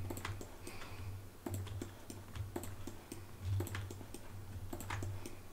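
Irregular clicking of a computer mouse and keyboard as mesh faces are selected one after another, over a low steady hum.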